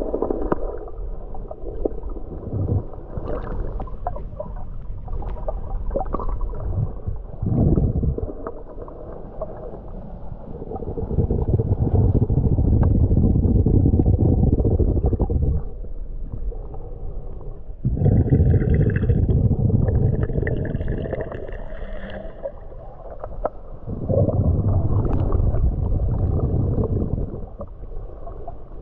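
Muffled underwater water noise picked up by a submerged camera: low rumbling, gurgling swells every few seconds with scattered light clicks. A thin high whine joins for a few seconds past the middle.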